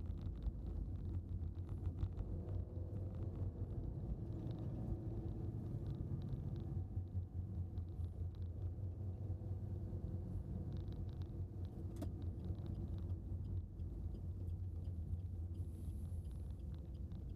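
A car driving, its engine and road noise making a steady low rumble, with one light click about twelve seconds in.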